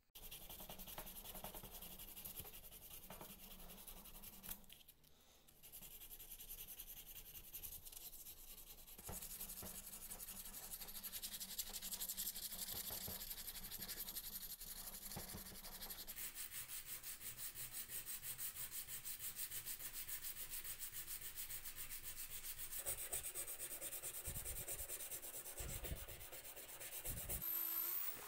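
Hand-sanding a steel part of a glazing point driver held in a bench vise: repeated scratchy rubbing strokes of abrasive on metal. Just before the end an electric drill briefly spins up with a rising whine.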